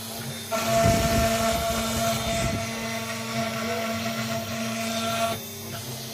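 Spindle of a CNC 6040 router running with a steady whine while its bit engraves plywood. The cutting noise grows louder about half a second in and drops back shortly before the end.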